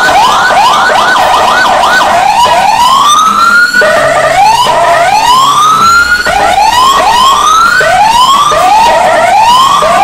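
Whelen CJB 200SA electronic siren sounding loud through its horn speaker, cycling through tones. It starts with quick rising yelps, moves into long rising wails about two seconds in and again around five seconds, then goes back to shorter rising sweeps. Each sweep cuts off sharply at the top.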